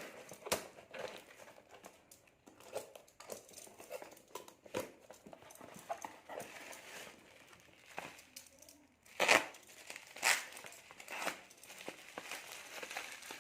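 Plastic courier packaging being handled and opened by hand: irregular crinkling and rustling with sharp crackles, three louder rips or crackles near the end.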